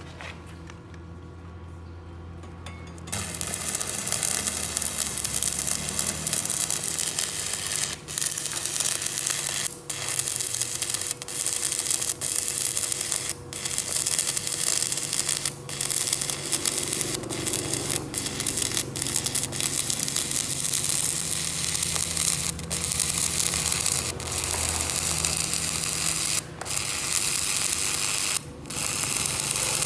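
Stick (shielded metal arc) welding on a steel T-joint: the electrode's arc crackles and sizzles steadily from about three seconds in, cutting out briefly a few times. A faint steady hum runs underneath.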